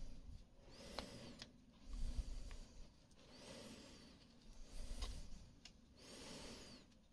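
Small hand-forged whittling knife paring a block of wood: a series of short slicing, scraping cuts a second or two apart, with a few faint clicks of the blade.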